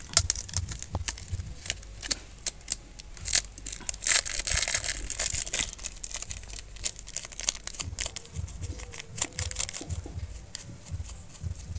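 Crinkling and rustling of a chaat masala packet being handled and opened, with scattered light clicks and taps; the rustling is densest about four to six seconds in.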